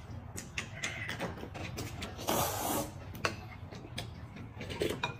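Noodle soup slurped from a bowl, one long slurp a little after two seconds in, with a few light clicks of chopsticks against porcelain bowls.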